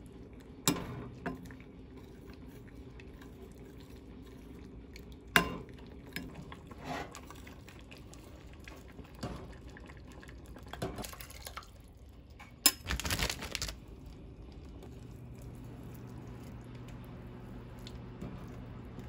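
A metal ladle clinking and scraping against a glass mixing bowl and a stainless steel saucepan, with a few sharp knocks. A short splashy rush of liquid being poured comes about thirteen seconds in.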